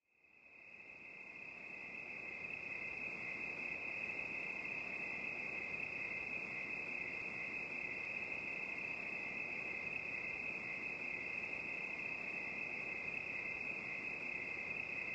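Insects, such as crickets, chirring in one faint, steady, high trill over a low hiss, fading in over the first couple of seconds.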